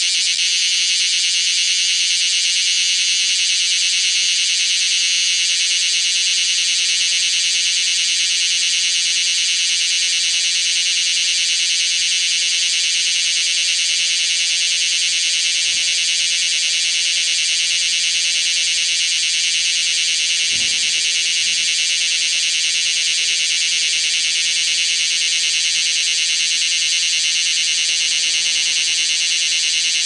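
Bear cicada (Cryptotympana facialis) singing at very close range: an ear-splitting, shrill buzz that holds steady with no break.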